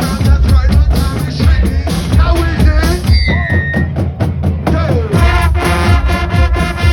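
Band music with a drum kit playing a busy beat and a heavy kick drum, with pitched instruments and a voice over it; a short gliding tone about three seconds in.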